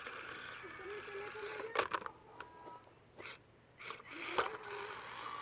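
Axial SCX24 micro RC rock crawler's small electric motor whining in two short spells of throttle, with a few sharp clicks and knocks as the truck works over a rock.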